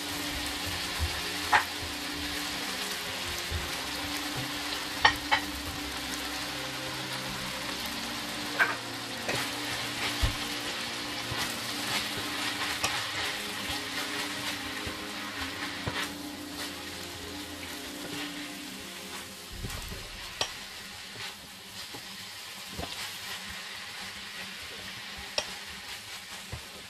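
Capsicum and cabbage sizzling in a hot oiled wok while a wooden spatula stirs and tosses them, a steady frying hiss broken by sharp knocks of the spatula against the pan every few seconds.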